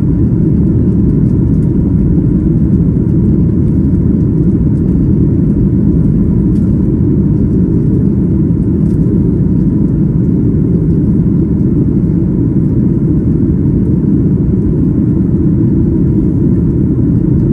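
Steady low rumble of a Boeing 737-8 MAX in flight, heard inside the cabin: the CFM LEAP-1B engines and the rush of air, even and unchanging.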